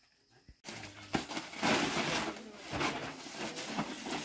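Bundles of large leaves rustling and crackling as they are handled and set down on the floor, with light knocks mixed in; it starts abruptly about half a second in.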